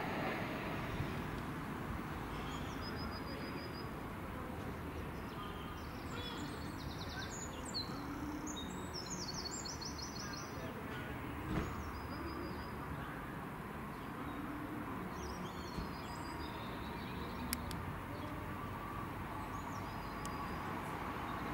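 Small birds chirping in short, high, repeated phrases over a steady low background rumble, with a brief knock about halfway through.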